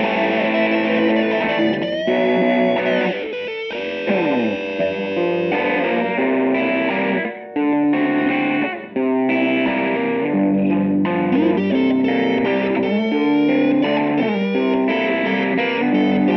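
Electric guitar music played through effects: lead lines with string bends. About four seconds in, a note slides steeply down in pitch, and the playing breaks off briefly twice a little later.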